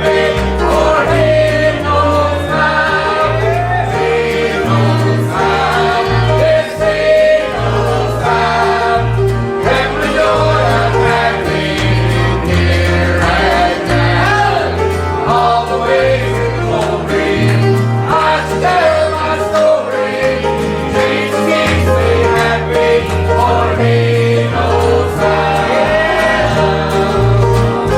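A gospel song sung by voices over a country-style band accompaniment, with a bass line stepping from note to note about twice a second.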